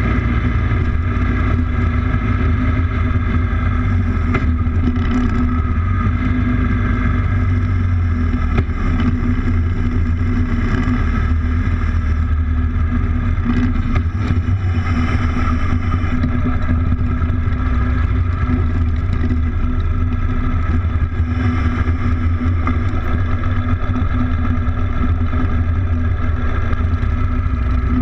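Motorcycle engine running at a steady pitch while riding along the road.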